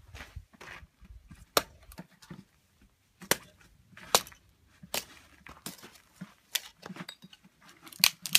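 Small hatchet splitting firewood into kindling: a series of sharp wooden chops, about one a second, with lighter knocks between them as pieces are set up and split.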